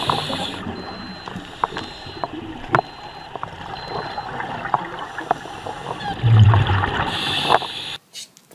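Underwater recording of a scuba diver: the hiss and gurgle of exhaled regulator bubbles at the start and again near the end, with water noise and scattered clicks between, and a brief low rumble shortly before the second bubble burst.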